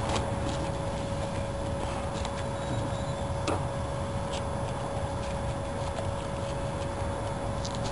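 Faint scattered ticks and light clicks as vinyl roof material is worked by hand into the trim around the rear window opening, over a steady low hum with a constant mid-pitched tone.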